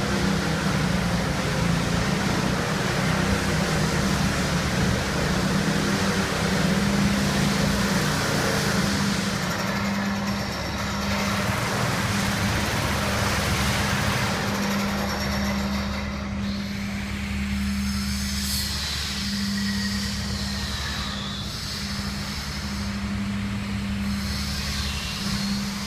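Engine of a concrete power trowel (surface polisher) running at a steady speed while it finishes a fresh concrete slab. A deeper engine hum joins about halfway through.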